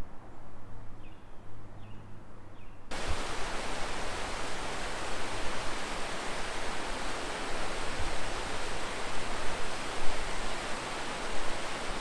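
Steady rushing of water pouring off a dam, which cuts in abruptly about three seconds in. Before it there is only quiet outdoor ambience with a few faint chirps.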